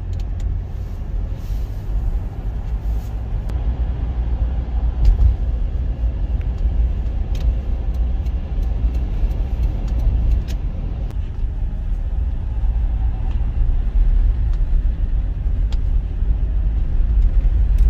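Road noise inside a moving car's cabin: a steady low rumble of tyres and engine while driving at road speed.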